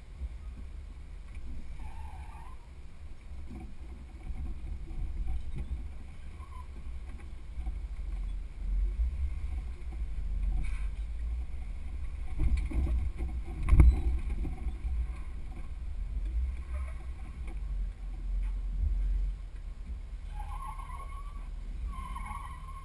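Jeep crawling slowly over slickrock: a low, uneven engine-and-drivetrain rumble mixed with wind buffeting the hood-mounted camera's microphone, with a single sharp knock about two-thirds of the way through.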